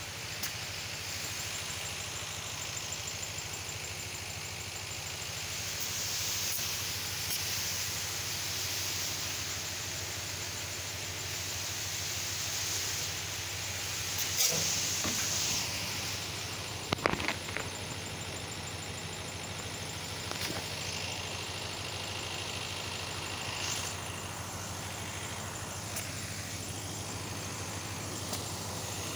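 Hand-held brass spray gun on a pressure hose hissing steadily as it jets a fine pesticide mist, over the steady hum of the motor-driven pump feeding the hose. A few brief louder knocks come about halfway through.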